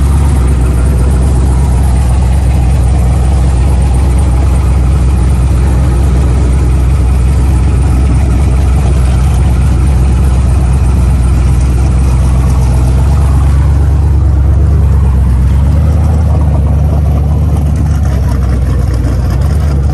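Twin-turbo 4x4 Silverado pickup's engine idling loudly and steadily close by, with a deep, even low rumble and no revving. The sound eases a little near the end as the truck moves off.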